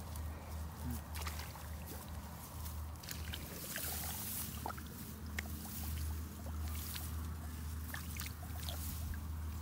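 Rice leaves brushing and rustling against a handheld phone as it moves through the plants, with scattered crackles over a steady low rumble.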